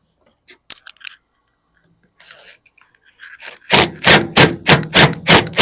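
Drill with a Phillips bit driving a stainless steel screw through a fender-clip bracket into a boat rail. It is run in short pulses: after a few faint clicks, a loud burst comes about three times a second from about two-thirds of the way in.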